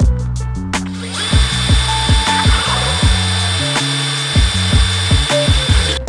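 Cordless drill starting about a second in and then running steadily with a constant high whine, drilling pilot holes through the steel of a compact tractor's loader bucket. Background music with a steady beat plays throughout.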